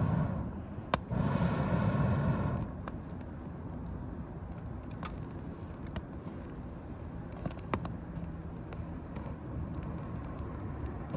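Wood campfire crackling, with scattered sharp pops. For the first two and a half seconds a louder rumbling noise lies over it, broken by one sharp pop about a second in.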